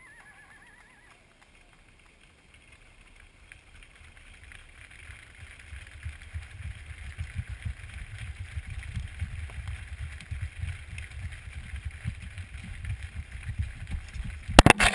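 Hooves of a herd of steers thudding and clattering on gravel and pavement as the herd streams past close by, building from faint to loud. Near the end come a few loud, sharp knocks as hooves land right beside.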